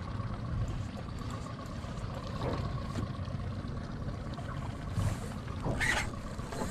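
Ambient sound aboard a small jet-sled boat on calm sea: a steady low rumble with a faint steady tone above it. Two sharp knocks sound on board near the end.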